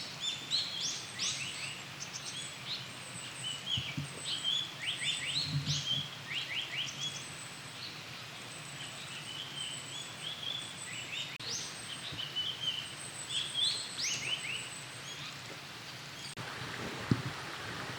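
Japanese paradise flycatcher singing: repeated chirping phrases and short runs of three quick falling whistled notes, over a hiss of woodland background. The song stops about two seconds before the end.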